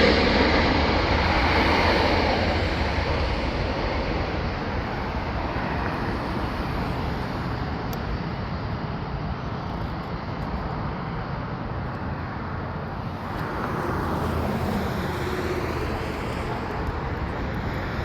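Jet airliner engine noise, loudest at the start and slowly fading away, then swelling again about thirteen seconds in.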